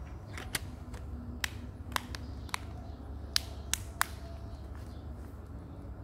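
A series of about eight short, sharp clicks or taps at uneven spacing, stopping about four seconds in, over a low steady hum.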